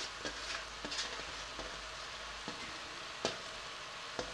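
Low, steady sizzle from a pot of pork and noodles cooking on the stove. A few faint taps and rustles sound as handfuls of noodles are pushed off a metal baking sheet into the pot.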